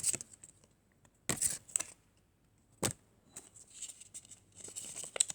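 Yu-Gi-Oh trading cards being handled and flipped through: a few short crisp rustles, then softer scattered rustling in the second half.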